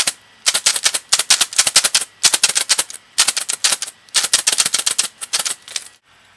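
Handful of loose plastic keyboard keycaps shaken like a maraca: clattering in about six rhythmic bursts, then stopping just before the end.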